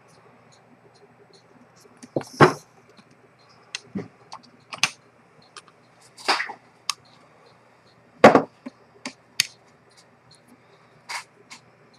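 Irregular sharp clicks and knocks, about a dozen, some in quick pairs: a vintage Rolex watch movement in a wooden movement holder being handled on a hard workbench, with small metal tools touching it. The loudest knocks come about two seconds in and near eight seconds.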